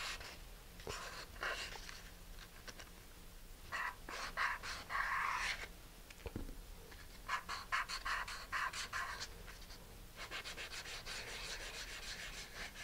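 Sanding block with sandpaper rubbed back and forth over small balsa wood fin pieces. The strokes are quick and rasping, and they come in several bouts with short pauses between.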